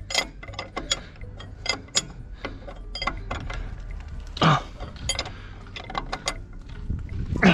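Irregular metal clicks and clinks of a truck's spring brake chamber being handled and worked into place on the disc brake caliper, with a duller knock about four and a half seconds in and another near the end.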